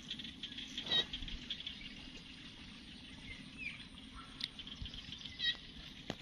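A steady high hiss with a few short, high chirps, the clearest about a second in and another near the end.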